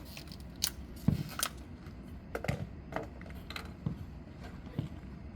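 A jokgu ball being kicked and bouncing on the court during play: a string of dull thumps and sharp knocks, the loudest about a second in.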